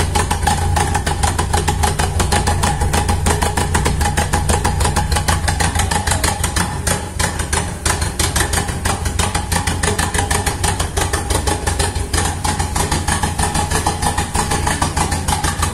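Renault 9/11 four-cylinder engine fitted with a modified performance camshaft, idling steadily through its twin tailpipes with a fast, even pulsing beat.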